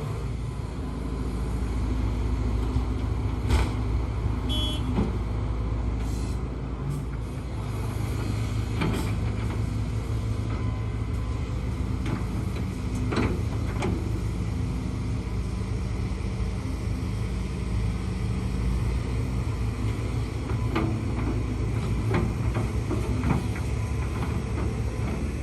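Hidromek HMK230LC hydraulic excavator's diesel engine running with a steady low rumble, with occasional knocks and clunks every few seconds.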